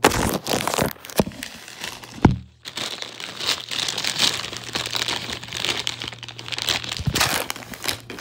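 Metallized plastic chip bag crinkling and being pulled open, a dense crackle with a few sharp knocks.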